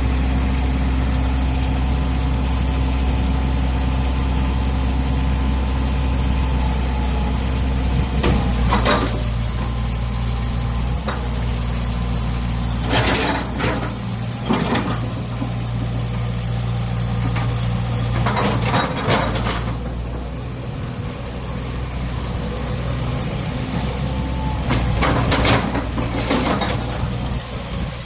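Hitachi EX120-5 tracked excavator's diesel engine running steadily, its pitch shifting a little. Short bursts of hiss come four times.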